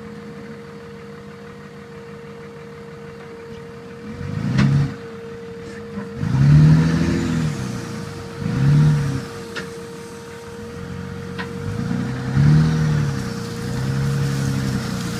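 Truck engine idling, then revved in four short surges that rise and fall, with a few sharp clicks and knocks between them.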